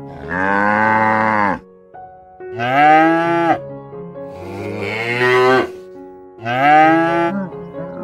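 Cattle mooing: four loud, drawn-out moos in quick succession, each lasting about a second and rising then falling in pitch.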